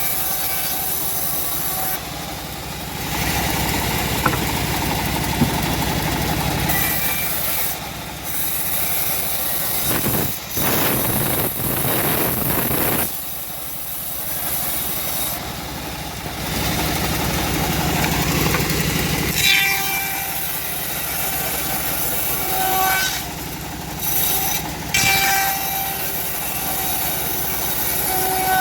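Homemade bandsaw mill running continuously while its blade rips through a teak log. The cutting noise swells and eases over long stretches.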